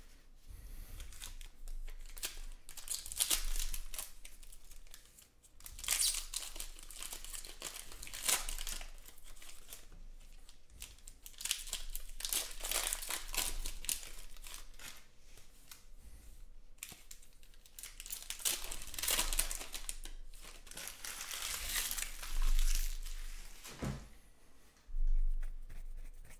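Foil wrapper of a Panini Rookies & Stars trading-card pack being torn open and crinkled by hand, in repeated bursts of crackling.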